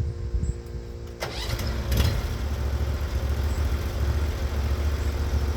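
Norwood HD36v2 bandsaw mill's gas engine coming up to speed about a second in, with a sharp clunk near two seconds, then running steadily louder under throttle.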